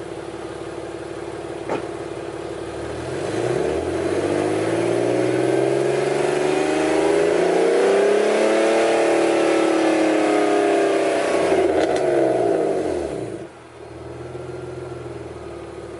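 BMW E46 with a catless exhaust and its exhaust valve closed, revved from idle up to about 4,000 RPM. The pitch climbs smoothly over a few seconds, holds, then falls and drops back to idle near the end.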